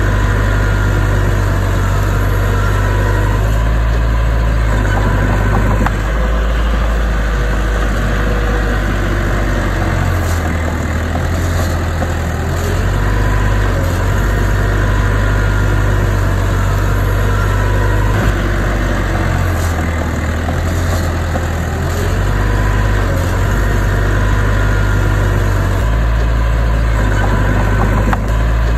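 Heavy diesel engine of earthmoving machinery running steadily, a loud low drone that swells and eases slightly now and then as the load changes.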